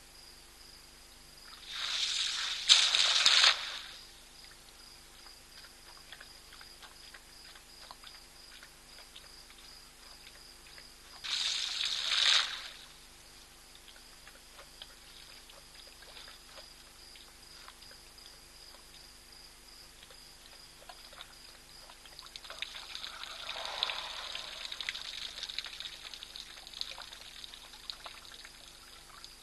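African elephant drinking: water from its trunk pours and splashes into its mouth in two short loud bursts about ten seconds apart. Later a longer, softer trickling spill follows.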